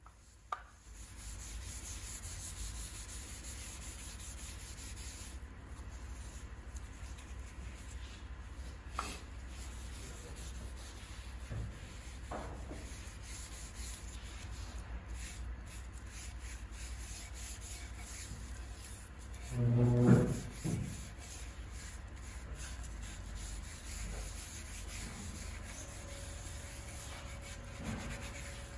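A cloth rubbing oil finish into a planed wooden cutting board: a steady scrubbing on the wood, with a few small knocks and one brief, louder bump about twenty seconds in.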